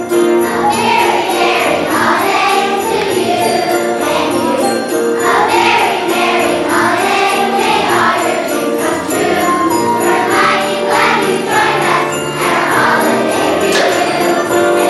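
A children's choir singing a holiday song over musical accompaniment with jingle bells ringing.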